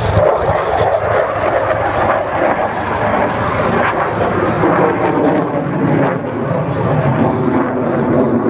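Fixed-wing aircraft flying a display, a loud steady engine rush whose higher hiss thins out over the second half.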